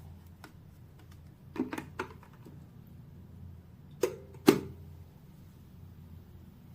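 Stainless steel electric kettle being handled: a few light clicks, then two sharp knocks half a second apart, each with a short ring, over a faint low hum.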